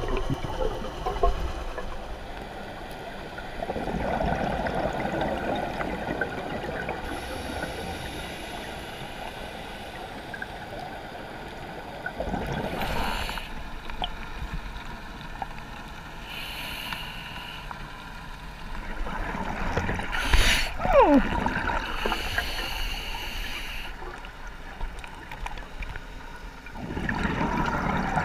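Scuba regulator exhaust bubbles gurgling in surges every several seconds, heard underwater through a camera housing. A short falling tone sounds about two-thirds of the way through.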